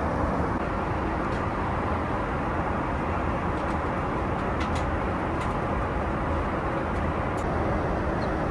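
Steady cabin noise inside a Boeing 777-300ER airliner in flight: the even rushing of airflow and engines, with a few faint light clicks.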